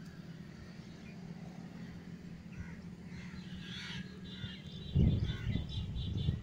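Birds calling in the background, including crow-like caws, over a steady low hum. About five seconds in comes a louder low rumble.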